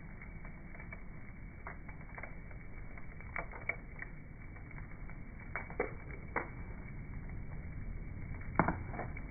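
Bonfire crackling: scattered sharp pops from the burning wood over a low steady rumble, the loudest pop near the end.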